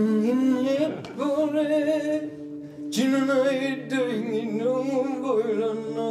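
Singing in long, wavering held notes over a steady musical drone, in about three phrases.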